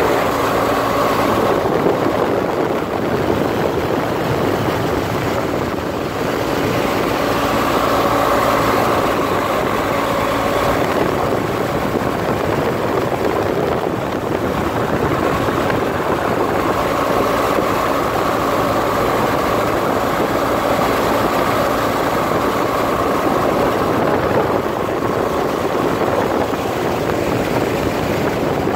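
Motorcycle engine running at steady cruising speed, mixed with the constant rush of wind over the microphone.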